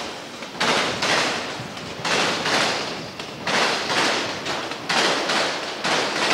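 Passing freight train carrying highway trailers on flatcars, its wheels clattering over the track in a repeating rhythm: a loud clack about every second and a half, each fading away before the next.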